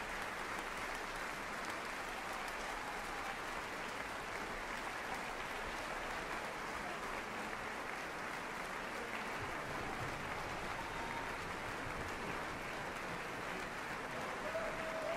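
Audience applauding steadily, a dense, even clapping that neither builds nor fades.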